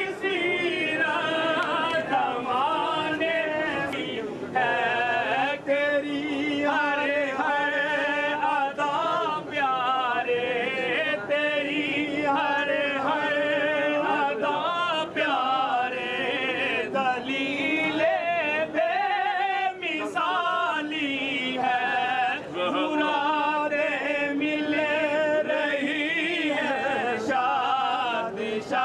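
Men's voices chanting a Sufi dhikr in chorus: a continuous, melodic sung chant with wavering held notes.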